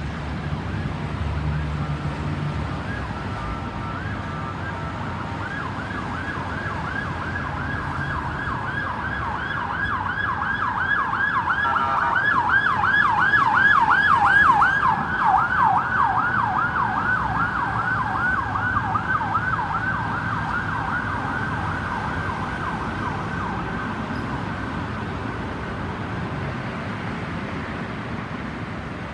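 Ambulance siren on a rapid yelp, quick rising-and-falling wails, growing louder as the vehicle approaches. It is loudest about halfway through, then drops slightly in pitch and fades away as it passes, over road traffic noise.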